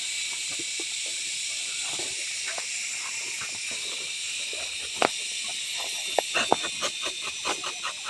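A steady high hiss runs throughout. From about five seconds in comes a run of short, sharp scraping strokes, about three a second, which fits a rubber-tapping knife shaving a strip of bark from a rubber tree.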